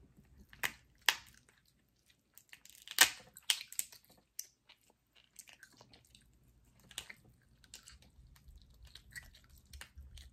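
Close-up eating sounds: chewing and wet mouth noises, with a scatter of sharp cracks and snaps as a cooked lobster tail shell is pulled apart by hand, the loudest about three seconds in.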